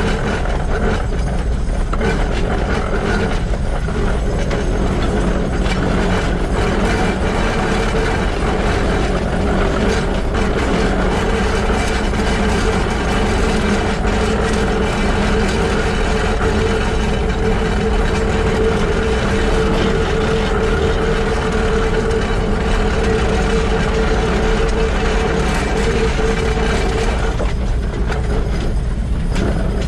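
Running gear of the Shay geared steam locomotive SL-31 turning as the train rolls along: its truck's bevel gears and wheels make a steady, loud mechanical clatter over a deep rumble. A steady hum runs under it and fades near the end.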